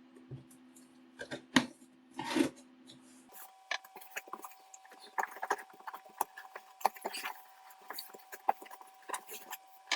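Cardboard guitar shipping box being opened by hand: scraping and rubbing of cardboard, with a few sharp knocks, then a run of small clicks and rustles from about three seconds in.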